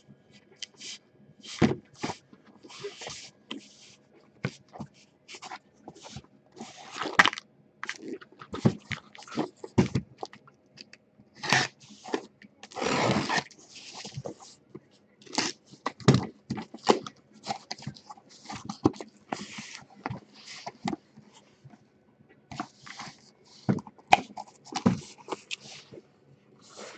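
Cardboard case being cut open and handled: a utility blade scraping along packing tape, cardboard flaps rustling and the box knocking on the table, in irregular bursts, with a longer scrape about halfway through.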